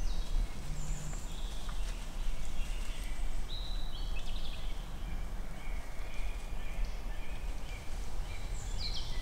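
Woodland ambience: scattered short bird calls and song phrases over a steady low rumble.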